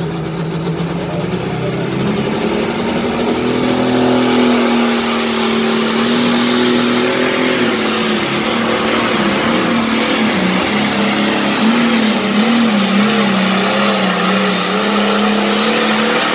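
Modified John Deere 4320 pulling tractor's diesel engine at full power under load during a tractor-pull run. The engine note climbs over the first couple of seconds and then holds loud and high, wavering a few times. A high whistle rises and then holds over it.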